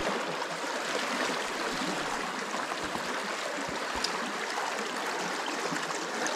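River water rushing and churning over granite boulders in a steady wash, with a couple of faint knocks about halfway through.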